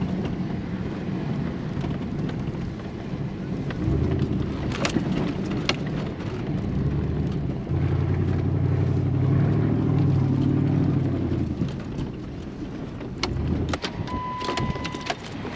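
Can-Am Maverick X3 Turbo side-by-side's turbocharged three-cylinder engine running under way, its note swelling louder from about the middle, with scattered clicks and knocks. A short high beep sounds near the end.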